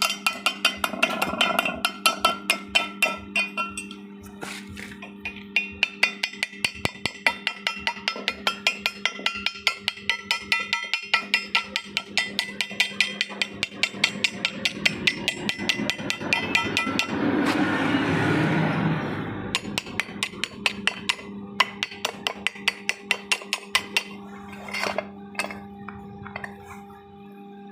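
Background music with a fast, clicking wood-block-like beat, about three to four strikes a second, over a held low chord, with a hissing swell about two-thirds of the way through.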